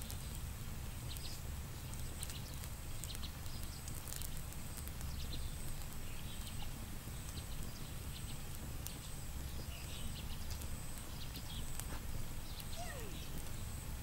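Small wood campfire crackling with scattered short pops and clicks, over a steady low rumble and a faint high thin tone that comes and goes.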